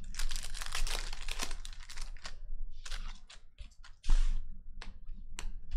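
Foil wrapper of a trading-card pack torn open and crinkled, with scattered rustles of the cards being handled and a louder rustle about four seconds in.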